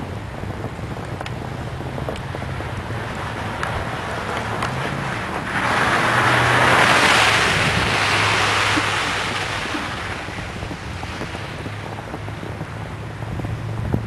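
Blizzard wind buffeting the microphone, with a pickup truck passing on a slushy road: the hiss of its tyres through wet snow swells up about five seconds in, is loudest around seven seconds and fades away by about ten.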